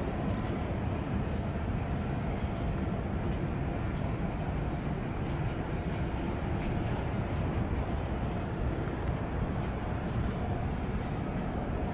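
Boeing 787-9 turbofan engines running at low thrust as the airliner taxis, heard from across the airfield as a steady, even rumble.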